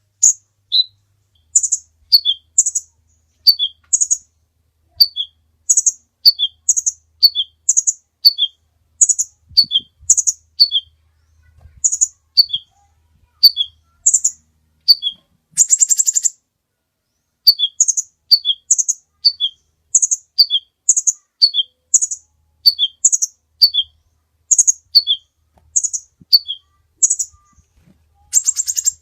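Kolibri ninja sunbird singing a long run of sharp, high chirps, each a higher note followed by a lower one, over and over with short pauses. Twice, about halfway and near the end, it breaks into a rapid buzzy trill.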